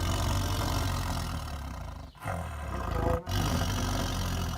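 Tiger roaring and growling in three long, deep bouts, with brief breaks about two seconds in and again about three seconds in.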